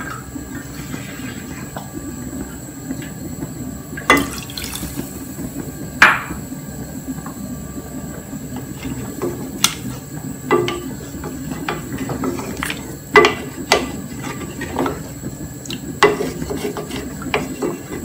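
Wooden spoon stirring a thin, watery curry in an aluminium pot, the liquid sloshing, with a handful of sharp knocks as the spoon hits the side of the pot, over a steady low hum.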